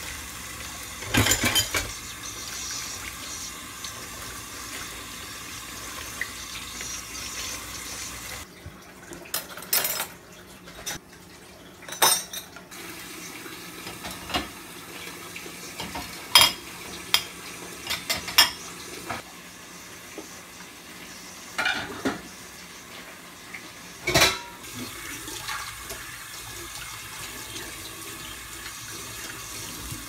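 Plates, steel pots and pans clinking and knocking against each other as they are handled in a stainless steel sink and set into a dishwasher's wire racks. A tap runs steadily for the first several seconds.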